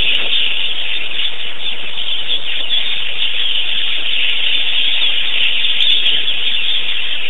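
A steady, loud high-pitched hiss that runs without a break, with no distinct calls or knocks in it.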